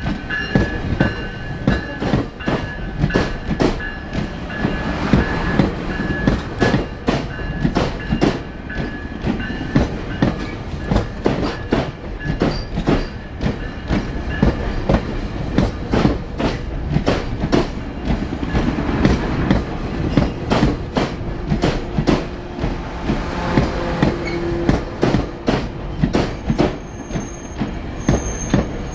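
GO Transit bi-level passenger coach in motion, heard from inside: a steady rumble with frequent clattering knocks of the wheels over the track. A thin, high, steady whine runs through the first several seconds, and another comes near the end.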